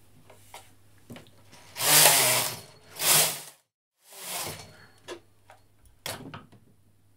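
Brother 950i knitting machine carriage pushed across the needle bed twice in quick succession, a loud rushing rattle with each pass, knitting rows of the pink section. After a short break comes a fainter pass and a few sharp clicks.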